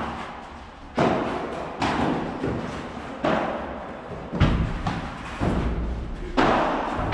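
Padel rally: the ball hit back and forth with rackets and bouncing on the court, a sharp thud every second or so, each ringing on briefly in the hall.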